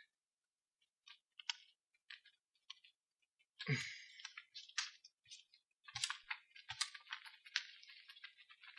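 Faint movement in a quiet room: a few soft footstep thuds with scattered light clicks and rustles, the clicks growing busier in the second half.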